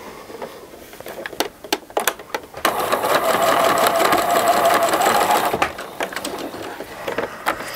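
Pfaff electric sewing machine stitching a short seam across a fabric zipper tab: a few light clicks as the work is set under the foot, then the machine runs steadily for about three seconds and stops, followed by more small clicks.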